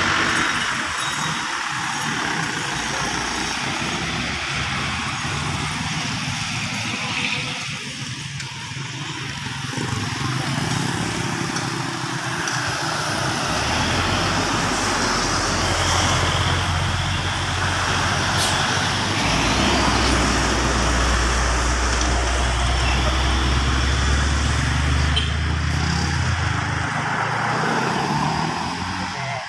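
Road traffic going past close by, cars and a heavy container truck, with the truck's low engine rumble loudest from about halfway through until near the end.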